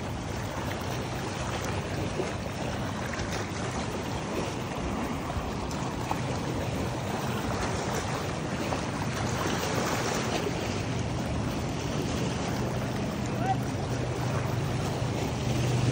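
Lake water lapping and washing among shoreline rocks, with the steady low hum of a distant motorboat underneath.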